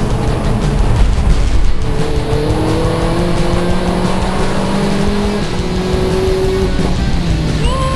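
Cabin sound of a 2.0 turbo Vauxhall Astra VXR race car at speed: the engine note climbs slowly and steps to new pitches a few times, mixed with background music.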